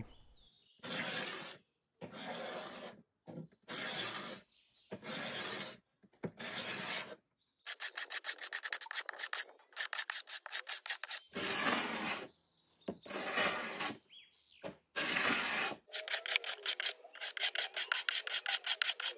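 Hand pull scraper dragged across a painted veneer tabletop, rasping the old paint off in separate strokes with short pauses between them. About halfway through and again near the end the strokes come in quick, short runs.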